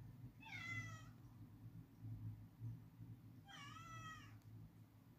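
Two faint cat meows, about three seconds apart, each lasting under a second.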